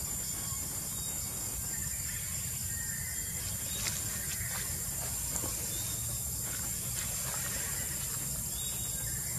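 Steady high-pitched insect chorus in the forest canopy, over a low rumble, with a few faint clicks around the middle.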